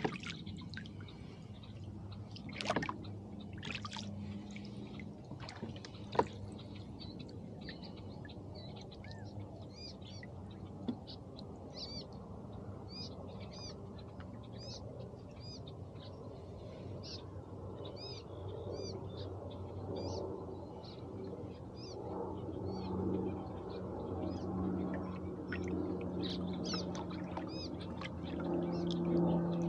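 Small birds chirping over and over in short, high notes, over a soft trickle of water around the rowboat. A few sharp knocks come in the first few seconds. A low, steady hum grows louder near the end.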